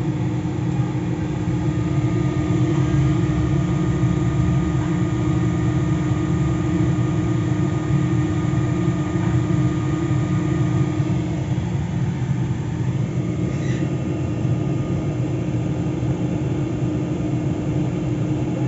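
Steady machinery hum with a constant mid-pitched tone over a low rumble, from HVAC plant equipment.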